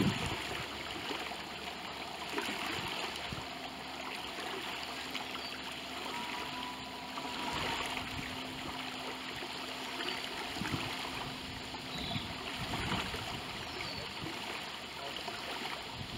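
Quiet lakeside ambience: a steady soft hiss of water and air, with a faint low steady hum through the middle few seconds.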